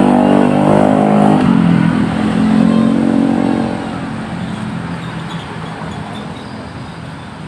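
A motor vehicle engine revving, its pitch climbing in the first second, dropping, then fading away steadily over the last few seconds.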